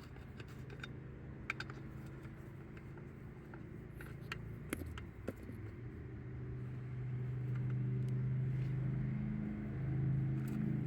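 A steady low engine-like hum that grows louder from about six seconds in, with a few light metallic clicks.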